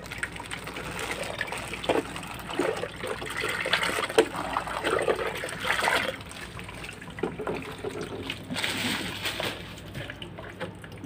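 Milky liquid poured from a plastic container into a bucket of muddy ore slurry, splashing and trickling in uneven gushes and easing off near the end.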